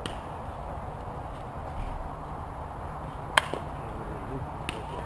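A single sharp crack about three and a half seconds in, over a steady low rumble, with a couple of fainter clicks before and after.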